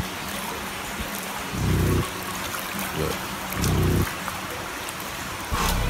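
Steady hiss of running floodwater, with the deep bass of a rap track thumping about every two seconds; the full track comes back in near the end.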